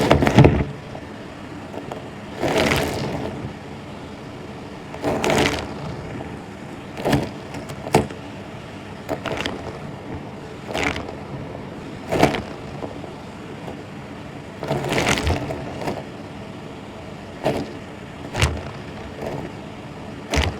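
A vacuum cleaner running steadily, with louder swishes and knocks every couple of seconds as it is worked back and forth over the floor.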